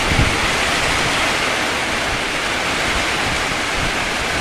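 Heavy rainstorm: a downpour driven by strong wind, heard as a loud, steady rushing hiss, with a brief low gust on the microphone just after the start.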